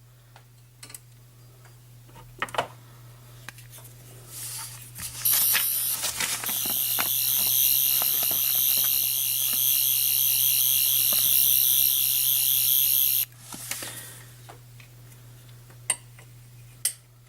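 Tenth Doctor sonic screwdriver toy's electronic sound effect: a high, warbling buzz that starts about five seconds in, lasts about eight seconds and cuts off suddenly. Scattered handling clicks come before and after it.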